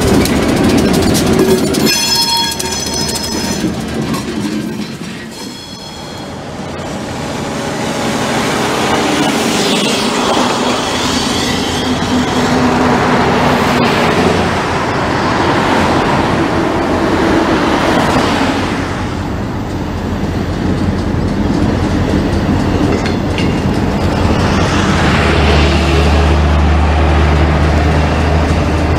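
A freight train rumbles past close by, then a horn sounds two blasts. Road vehicles swish by one after another, and near the end the low, steady drone of an approaching diesel locomotive comes in.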